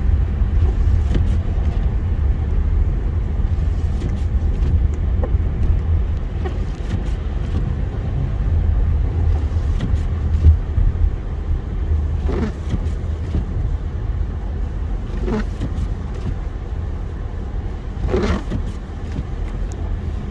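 Car driving at a steady speed: a steady low road and engine rumble.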